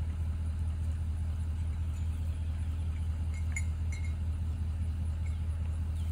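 Engine of the shed-delivery truck rig idling steadily as a low hum, with a few faint metallic clinks about three and a half to four seconds in.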